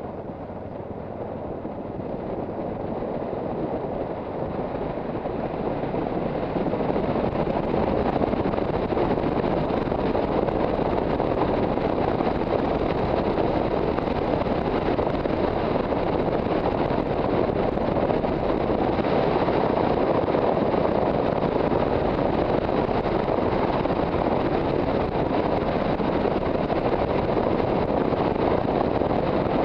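Wind rushing over the microphone of a camera mounted on a moving Yamaha XT660Z Ténéré motorcycle, with the bike running underneath. The rush grows louder over the first seven seconds or so, then holds steady.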